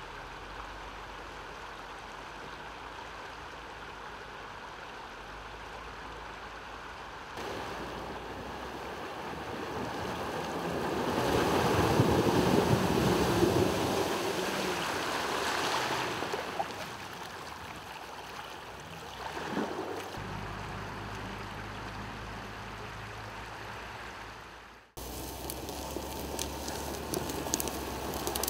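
Water surging and splashing as a Range Rover Supercharged wades through a river, building to its loudest about a third of the way through. Before and after it there is a steadier rush of wind and water, broken by several sudden cuts.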